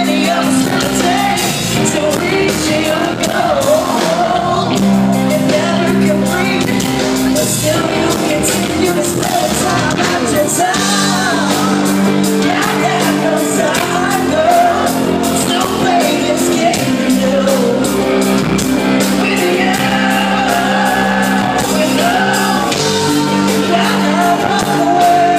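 Live rock band in a concert hall, heard from the crowd: a male singer over electric guitar, bass and drums, with cymbals ticking steadily.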